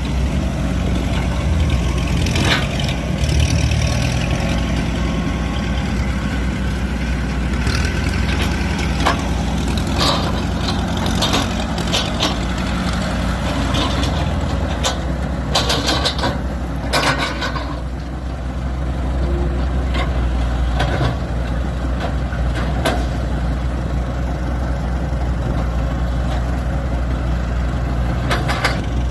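Diesel earthmoving machinery running steadily, with scattered metallic clanks and knocks, several bunched together around the middle.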